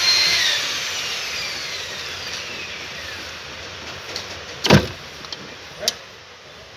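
A small motor's whine winding down, falling in pitch and fading over the first few seconds. A sharp knock comes about two-thirds of the way through and a lighter one a second later, as the ECM board is worked loose from under the dashboard.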